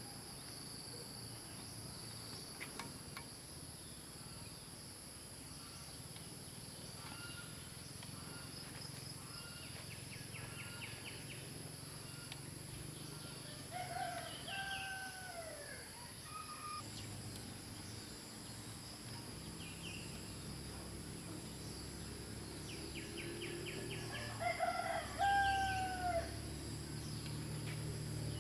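A rooster crows twice, once about halfway through and again near the end, over a steady high chirring of insects.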